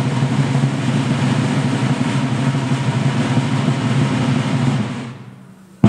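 Military snare drum roll held at an even level, fading out about five seconds in, before a musket salute. A sudden loud bang comes right at the end.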